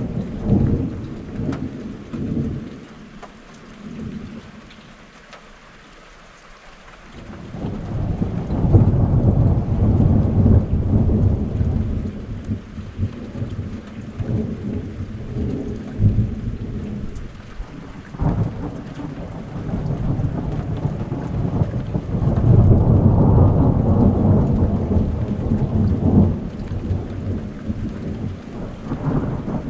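Thunder rolling in long, deep rumbles that swell and fade in waves, with a quieter lull a few seconds in and loud rolls around a third of the way through and again later. Steady rain falls throughout.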